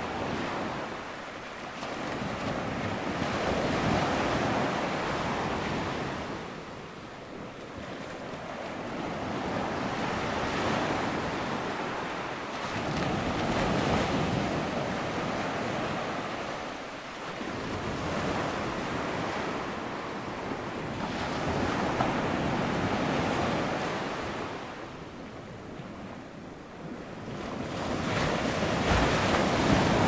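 Ocean surf: waves breaking and washing in, a rushing sound that swells and ebbs every few seconds.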